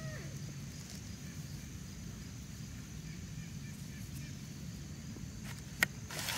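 Quiet outdoor background: a steady low hum under a faint steady high hiss, with one sharp click near the end followed by brief rustling.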